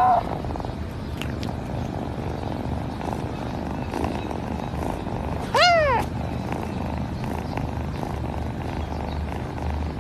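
Young kitten mewing: one short, high mew that rises and then falls in pitch about halfway through, and the tail of another mew right at the start, over a steady low rumble.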